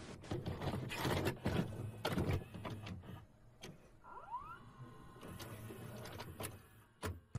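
Retro VHS-style intro sound effect: a videocassette player's mechanism clicking, clunking and whirring as a tape loads and plays, with noisy crackle. A short rising tone comes about four seconds in, and a sharp click near the end.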